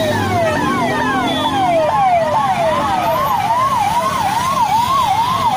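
Electronic siren on a police escort vehicle, cycling fast: a quick falling wail that jumps back up and repeats roughly three times a second, over the noise of passing traffic.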